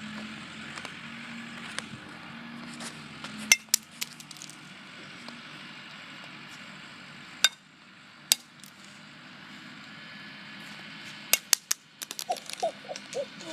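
A bat striking a flip phone: sharp cracking hits, a couple of single blows and then a quick flurry of several hits near the end, which break the phone in half.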